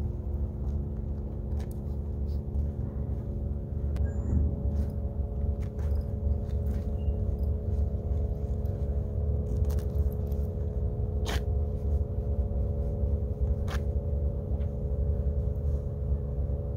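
Wind rumbling on the microphone over a steady low drone, with a few sharp clicks, two of them in the second half.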